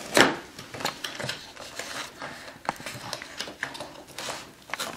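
Cardboard toy box being pulled and handled: irregular rustling, scraping and tapping of cardboard, with a louder rustle just after the start.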